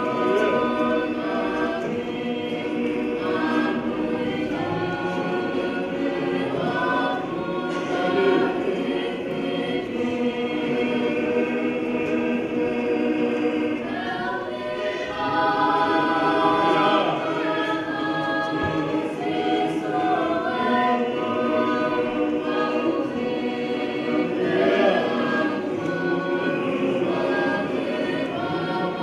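A Tongan church choir of men, women and children singing a hymn together, several voices holding sustained notes in harmony.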